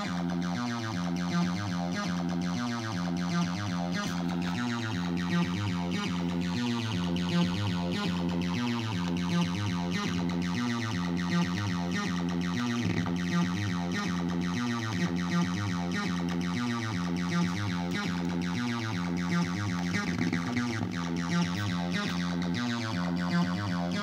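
ML-303, a TB-303-style bass synthesizer with a software-generated oscillator, playing a looping acid bassline of short notes, with accented notes standing out in the repeating pattern.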